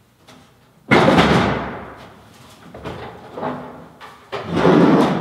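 A bulky object being dragged and knocked about in a pickup truck's bed. A sudden loud scraping clatter about a second in fades over a second, a few lighter knocks follow, and another loud scrape comes near the end.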